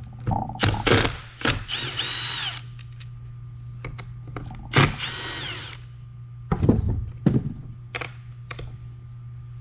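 Cordless drill-driver backing out bolts in two short runs, its motor whine rising, holding and falling each time. Sharp clicks and knocks of tools and parts being handled fall between the runs.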